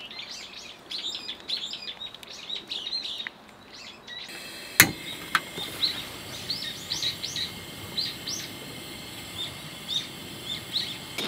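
Small birds chirping, a rapid string of short high calls that keeps going, with a single sharp click about five seconds in.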